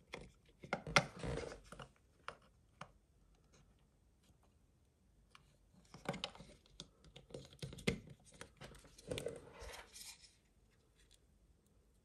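Hands handling a small plastic speaker housing and circuit board: light clicks, taps and scrapes in two spells, the first in the opening two seconds and the second from about six to ten seconds in, with a near-quiet pause between.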